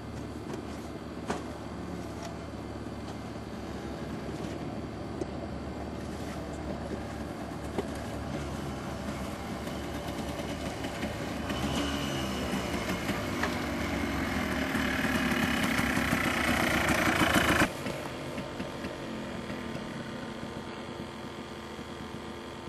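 Yamaha Blaster ATV's single-cylinder two-stroke engine running as the quad is ridden on a dirt trail. It grows louder as the quad comes close, then drops suddenly to a fainter level about three-quarters of the way through.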